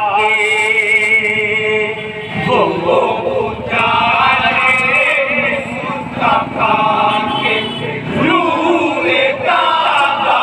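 A group of men singing an Urdu devotional kalam together without instruments, holding long notes that waver in pitch.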